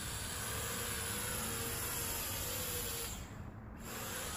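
Faint, distant buzz of a small toy quadcopter drone's motors as it flies overhead, wavering slightly in pitch, under a steady hiss. The hiss briefly thins about three seconds in.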